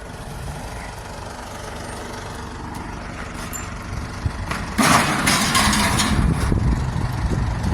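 Truck engine running with a steady low rumble; about five seconds in, a louder rushing noise comes in and the engine sound gets louder.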